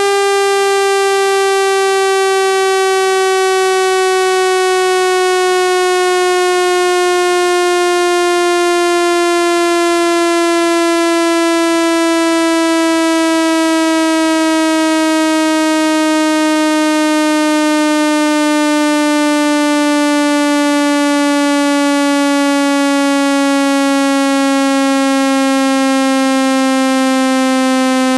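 Speaker-cleaning water-ejection tone: a loud, steady electronic tone with many overtones, its pitch sliding slowly and evenly downward.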